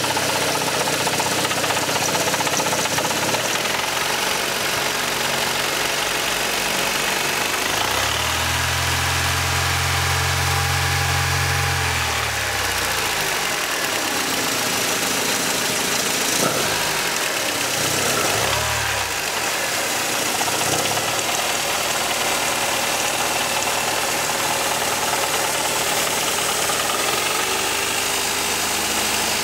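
Mercedes M102 2.3-litre four-cylinder engine running with a rattling knock at low revs, its speed changing several times and briefly revved up and down about two-thirds of the way through. The mechanic takes the rattle for a bottom-end fault such as a worn big-end bearing.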